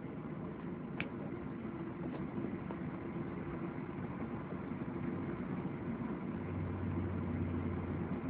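Steady engine and rolling noise heard inside the cabin of a Boeing 737-800 rolling out on the runway after landing. There is a short click about a second in, and a low hum joins near the end.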